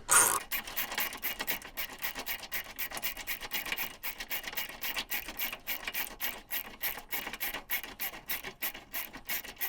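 Hand tool working metal: a fast, even run of scraping strokes, about five or six a second, after a single louder hit at the start.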